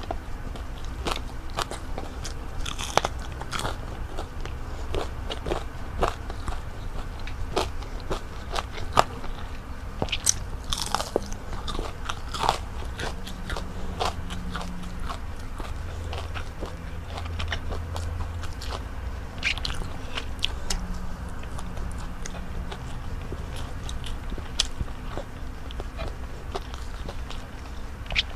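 Close-miked biting and chewing of crispy breaded fried calamari, with many irregular sharp crunches and crackles, alongside softer chewing of fried salmon and rice.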